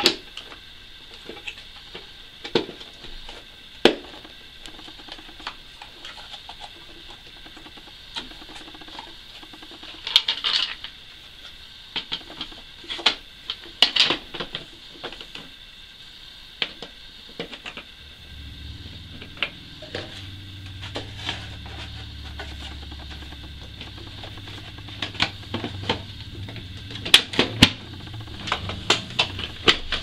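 Irregular plastic clicks, knocks and rattles as the plastic housing parts of a Hoover PurePower upright vacuum cleaner are handled and fitted back together by hand. A low steady hum joins about two-thirds of the way in.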